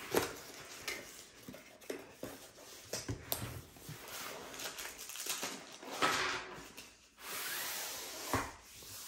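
Long cardboard kit box being opened and handled: cardboard scraping, rubbing and light knocks, with a longer sliding rustle about seven seconds in.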